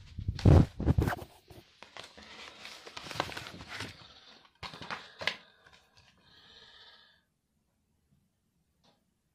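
Blu-ray cases and a plastic bag being handled: a few loud knocks of the cases early on, then crinkly plastic rustling and clicks that stop about seven seconds in.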